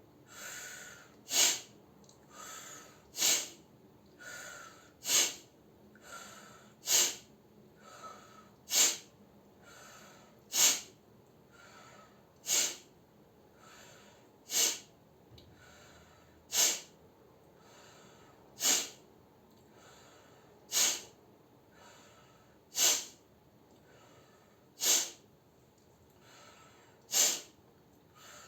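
A person breathing in softly through the mouth, then breathing out sharply and forcefully through the nose like a held-back sneeze, again and again about every two seconds: the 'breath-sneeze' breathing exercise for clearing the nose.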